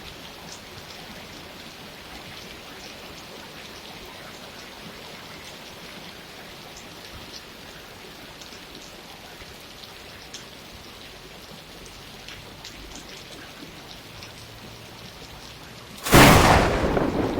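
Steady rain with scattered drop ticks. Near the end a sudden loud thunderclap breaks in and rumbles on.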